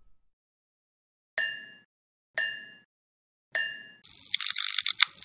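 Sound effect of a neon sign switching on: three sharp ringing hits about a second apart, then a crackling electric buzz starting about four seconds in.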